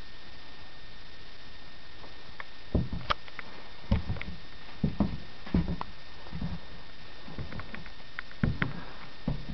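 Steady hiss with a faint high whine. From about three seconds in come irregular soft thumps and clicks, roughly one or two a second.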